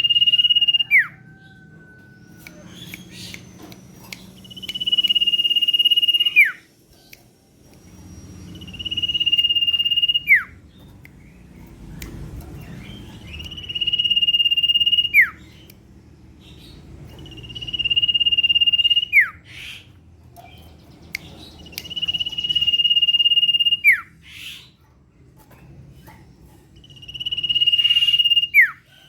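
Common iora (sirtu/cipoh) calling over and over: each call is a long, steady, high whistle of about a second and a half that ends in a quick drop in pitch, repeated seven times about every four to five seconds.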